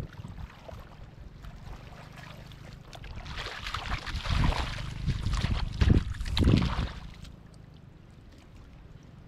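Shallow rice-field water sloshing and splashing as someone wades and gropes for fish by hand, building to a few heavier splashes in the middle before settling back to a low slosh.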